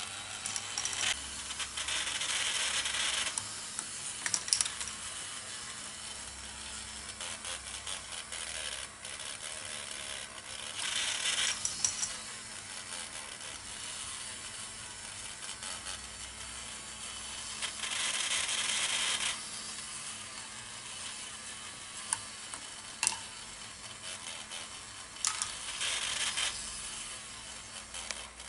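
Plastic K'Nex ball-machine automaton running: a steady clicking and rattling of its gears and linkages, with louder rattling stretches about every seven to eight seconds and a few sharp clacks.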